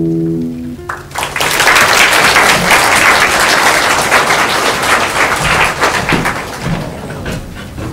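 The final chord of a nylon-string classical guitar rings and dies away, then audience applause breaks out about a second in and gradually tapers off near the end.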